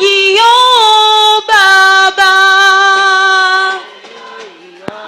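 A high solo voice singing long held notes, each about a second, with small slides between them; it drops away about four seconds in, and a single click sounds near the end.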